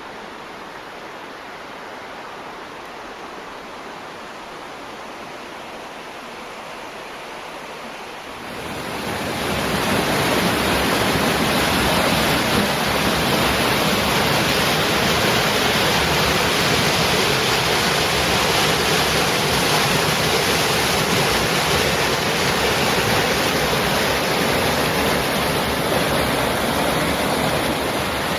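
Running water rushing steadily. About eight seconds in it swells quickly to a much louder, fuller rush, then holds steady.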